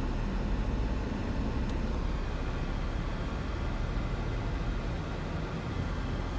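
Car cabin noise: the steady low rumble of the car's engine and road noise, heard from inside while the car idles and creeps forward in slow traffic.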